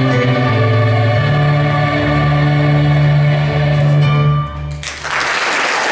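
Choir of mixed voices with instrumental accompaniment holding the big final chord of a show tune, which cuts off about five seconds in. Audience applause breaks out right after.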